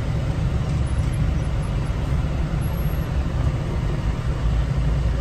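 Steady low rumble heard inside a car crawling in a traffic jam: the car's own engine and the surrounding traffic.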